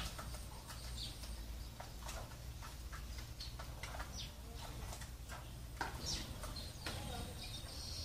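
Sparrows chirping in short, irregular notes, over a steady low hum.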